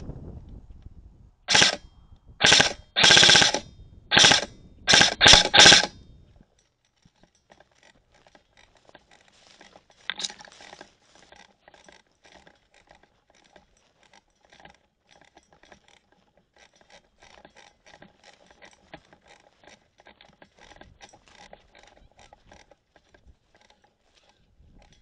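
Airsoft electric gun firing about seven short full-auto bursts in quick succession over some five seconds, each a rapid mechanical rattle with a steady whir under it. Faint scattered ticks follow.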